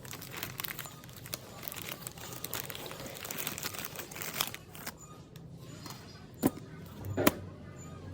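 Close handling of a broken phone's parts: a steady run of small clicks and crinkling, then two sharp clicks near the end.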